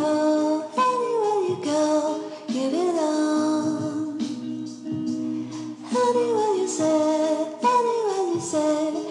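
Background music: a song whose sung melody slides downward in short repeated phrases.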